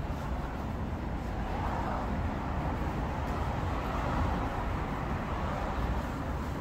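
City street traffic: a steady rumble of passing vehicles, swelling a little as one goes by.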